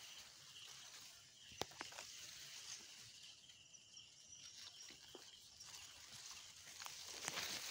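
Faint field ambience: a steady high insect buzz, with a few sharp clicks and a short spell of rustling near the end as rice stalks brush close by.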